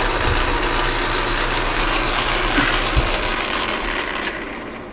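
Metal lathe running, its chuck and gear train giving a steady mechanical whir with a single knock about three seconds in. It winds down and falls away after a click about four seconds in, as the lathe is stopped.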